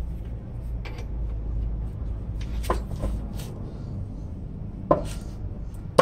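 Scattered sharp metal clicks and knocks, about five of them spread over a few seconds with two close together, as tools and hands work on a car's front brake caliper. A low steady rumble runs beneath.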